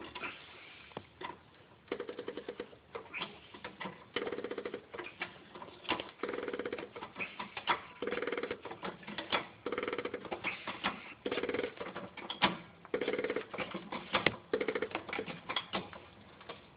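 Repeated creaking from a BMW E46 325Ci's suspension as the car is raised on a jack: a short, rapid creak about every one and a half seconds, with a few sharp clicks in between. The owner is not sure whether it is the spring or the strut's top mount.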